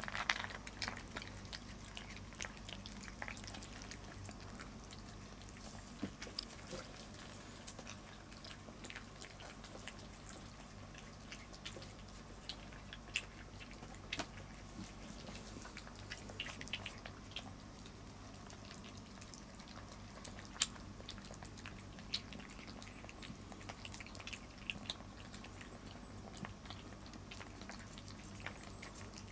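Domestic cats eating dry kibble from bowls: soft crunching with many small scattered clicks and taps, one sharper knock about two-thirds of the way through, over a faint steady low hum.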